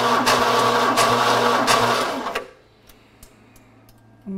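Starter motor cranking a Ford 302 small-block V8 with a compression gauge screwed into one spark plug hole, for a dry cylinder compression test. The cranking stops about two and a half seconds in.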